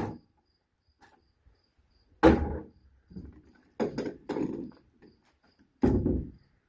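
Clanks and knocks of hand tools against metal while the truck's battery terminals are being loosened: one at the start, one a little after two seconds, a quick cluster around four seconds and one near six. A cricket chirps steadily and faintly in the background.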